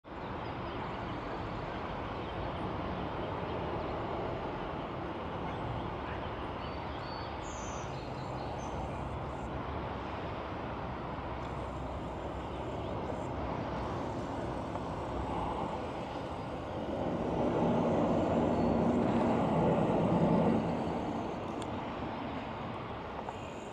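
Steady hum of city traffic. It swells for a few seconds about two-thirds of the way through as a vehicle engine passes closer.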